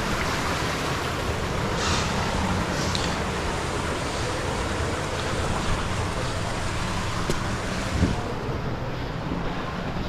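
Steady rushing noise of the waterfall's falling water, mixed with wind on the microphone. A couple of faint knocks come near the end.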